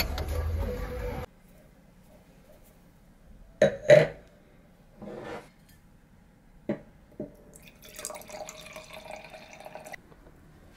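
Wine poured from a bottle into a stemmed wine glass, a steady splashing pour of about two seconds that stops near the end. Before it, a couple of loud knocks and a few small glass clicks as the glass and bottle are handled on the table.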